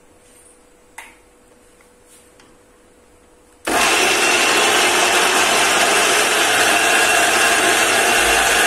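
A light click about a second in, then an electric mixer grinder starts abruptly a little past halfway and runs steadily at full speed, grinding sweet corn, onion, ginger, garlic and chillies with a little water into a batter paste.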